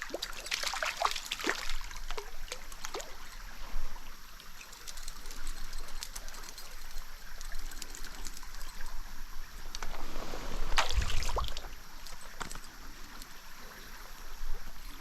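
Stream water trickling and splashing close by, with scattered small splashes and crackles. About eleven seconds in comes a louder rush with a low rumble.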